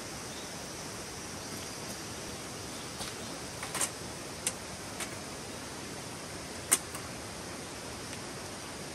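Steady rushing of a small stream, with a handful of sharp clicks in the middle, the loudest about two-thirds of the way through.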